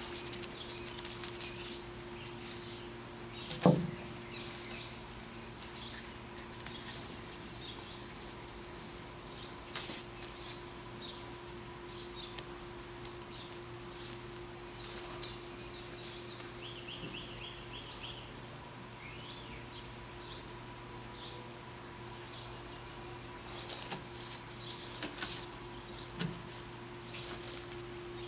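Small birds chirping in short high calls, with rustling as a leafy bamboo sprig is brushed about over a wooden table, and a steady low hum underneath. A single thump about four seconds in is the loudest sound.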